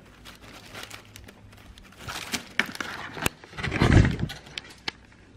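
Thin plastic shopping bag rustling and crinkling while it is handled and items are pulled from it, starting about two seconds in, with a few sharp clicks. The loudest rustle comes about four seconds in with a low muffled thump.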